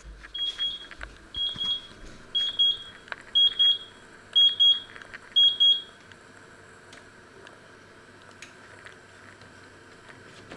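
Electric oven's timer beeping: a quick run of high beeps about once a second, six times, until it stops about six seconds in, with its display at 00:00 as the countdown runs out. A few faint clicks follow as the control knob is turned.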